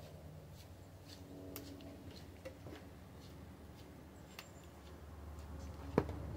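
Faint outdoor ambience: a steady low rumble with scattered light ticks, and one sharp knock about six seconds in.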